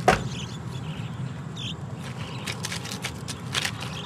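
A sharp click right at the start, then a steady low outdoor rumble with a brief high chirp and a few light clicks.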